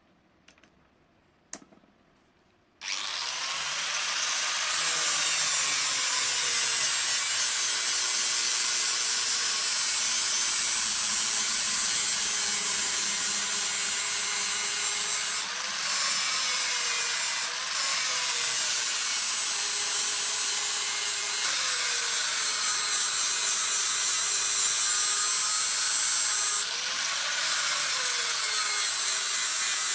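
Electric grinder starting up about three seconds in and running steadily under load against steel, its pitch wavering as the work is pressed on, with a few short dips where the load eases. A few light clicks come before it starts.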